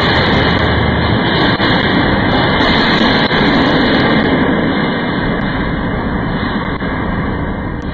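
A loud, steady rushing noise, like a jet or a strong airflow. Its hiss thins out about four and a half seconds in, and the noise then runs on a little quieter.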